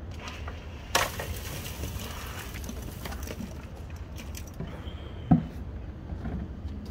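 Footsteps crunching on loose, freshly graded dirt, with a sharp crackle about a second in and a low thump a little after five seconds, over a low steady rumble.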